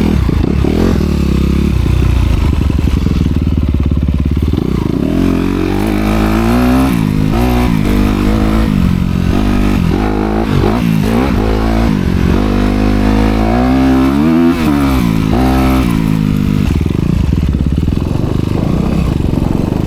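Honda CRF250R dirt bike's four-stroke single-cylinder engine with dual exhaust, ridden with the throttle worked on and off. After a steadier stretch its pitch rises and falls again and again through the middle, then settles near the end.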